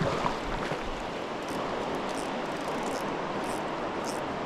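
Steady rush of flowing river water from the North Branch of the Potomac, with faint high ticks now and then.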